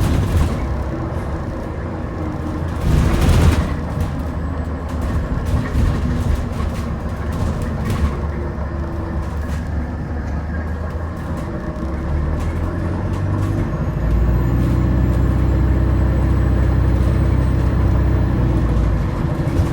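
Inside an Alexander Dennis Enviro400H City hybrid double-decker bus on the move: a steady drivetrain hum and engine drone, with a brief louder rush of noise about three seconds in.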